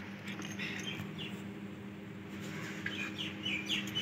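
Dry multani mitti (fuller's earth) chunks cracking and crumbling between fingers, in short crackly bursts about half a second in and again near the end, over a steady low hum.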